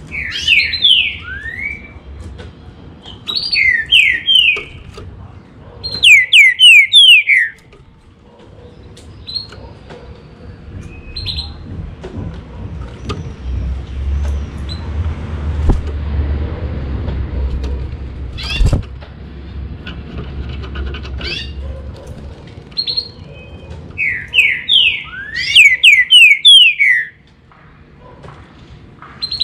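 Green-winged saltator (trinca-ferro) singing loud phrases of rapid, downward-slurred whistled notes: three phrases in the first eight seconds and another near the end, with single notes between. A low rumble runs through the middle, with one sharp knock.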